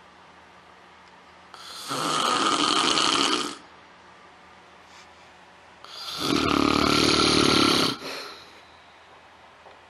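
A sleeping person snoring: two loud, rasping snores about four seconds apart, the second one deeper.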